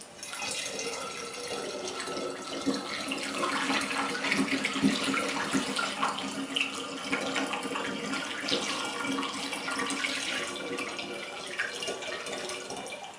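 Pomegranate juice pouring in a steady stream into a glass 5-litre jug of apple juice, a continuous splashing pour that starts about half a second in.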